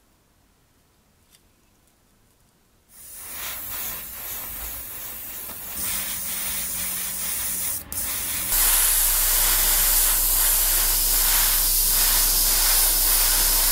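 Spray painting a small model part: a steady spray hiss that starts about three seconds in, grows louder in steps, breaks off for a moment near eight seconds, then comes back at its loudest before stopping abruptly.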